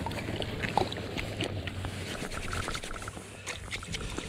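Hands splashing in the slushy water of an ice-fishing hole, with scattered small clicks and knocks.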